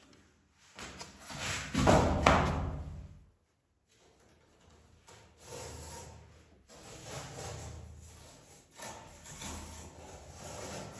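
Thin wooden strips being picked up, rubbing and knocking against each other, loudest about two seconds in. Then come several drawn-out rubbing sounds as cloth electrical tape is laid along a hardboard strip and pressed down by hand.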